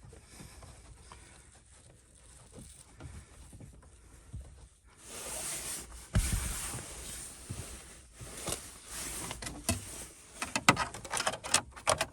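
Hand-work noises in a car's dashboard as a radio mounting part is test-fitted: scattered clicks and knocks with rustling, faint at first and busier from the middle on.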